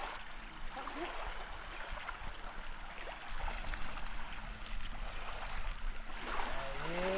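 Steady rushing of flowing river water, with a few faint clicks; a man's voice starts near the end.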